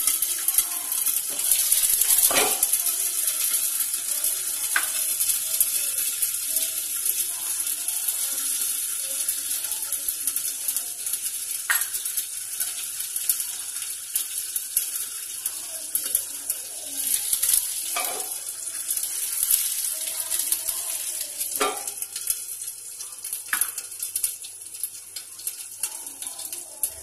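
Mustard seeds, cumin and chopped green chillies sizzling in hot oil in a steel-lidded kadhai on a gas burner, with a sharp pop every few seconds. This is the tempering stage of the curry, and the sizzling slowly dies down.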